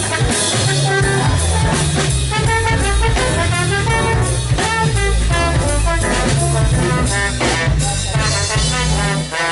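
Live jazz band with a trombone playing the lead line over keyboard and drum kit, the drummer hitting sharply and often.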